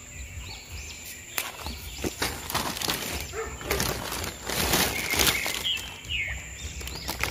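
Rustling, scraping and clicking of hands working a gritty soil mix around a bonsai's base and setting a metal ring collar, a dense run of small noises through the middle. Birds chirp now and then in the background.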